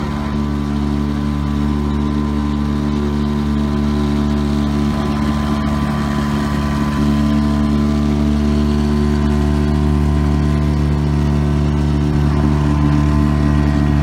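Outboard motor of a small inflatable boat running steadily at a constant pitch, getting a little louder about halfway through.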